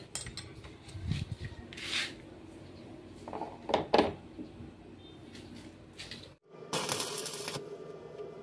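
Metal hand tools (pliers and wrenches) clinking and scraping as they are handled and picked up off a concrete floor, with several short knocks, the loudest about four seconds in. Near the end a brief burst of rustling noise follows a short drop-out.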